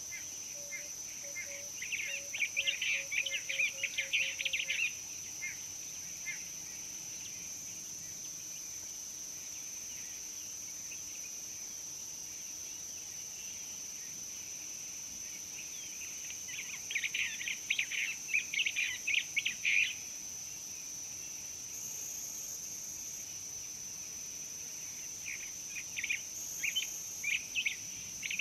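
Insects trilling steadily on one high note, with three bouts of rapid bird chirping: about two seconds in, again past the middle, and near the end. A faint series of low coos, quickening as it goes, dies away in the first few seconds.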